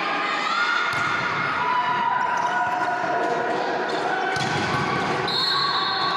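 Volleyball being struck and bouncing in a sports hall, a few sharp smacks over a dense, echoing crowd of voices shouting and calling.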